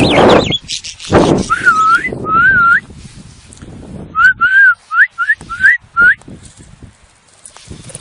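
A person whistling short single-tone notes that dip and rise in pitch, two and then a quicker run of five, calling a free-flying budgie back. Loud bursts of noise come in the first second or so.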